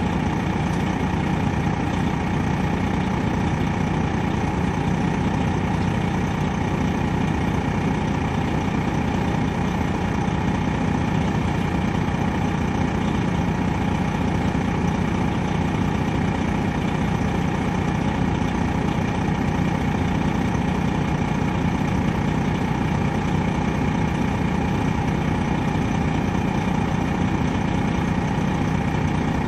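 Detroit Diesel Series 60 engine of a 2003 MCI D4500 coach running at a steady, unchanging pitch, heard from on board the bus.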